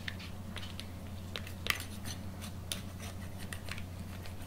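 Table knife cutting through a flour-tortilla quesadilla on a paper plate: irregular scrapes and short clicks as the blade saws through and knocks against the plate.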